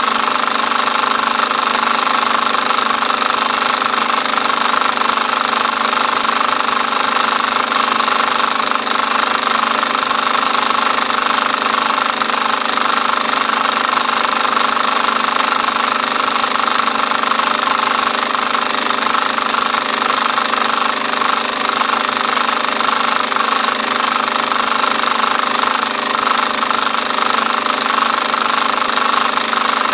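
Film projector running: a steady, unbroken mechanical clatter and whir with no pauses.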